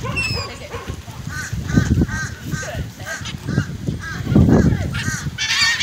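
A flock of waterbirds calling in a rapid series of short, repeated calls, about two or three a second, getting busier near the end. There is low rumbling handling or wind noise, with a loud low thump about four and a half seconds in.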